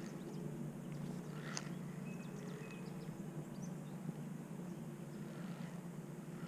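Birds chirping with short high calls and a brief held whistle, over a steady low hum.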